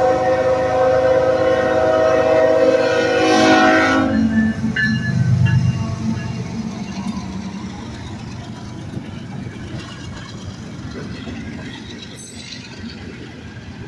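Freight diesel locomotive's multi-chime horn blowing a long chord that cuts off about four seconds in, the warning for the grade crossing. The locomotives then rumble past close by, followed by the steady rolling clatter of freight cars on the rails, slowly fading.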